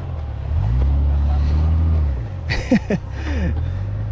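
A car engine revving: the pitch climbs about half a second in, holds, then drops back about two seconds in. The vehicle is bogged down and trying to drive out of where it has sunk.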